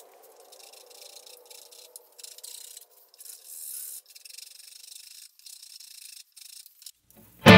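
Hand-sanding a wooden guitar headstock: faint, irregular scratchy strokes of abrasive on wood, with short pauses between them. A faint hum fades out over the first few seconds, and guitar music starts right at the end.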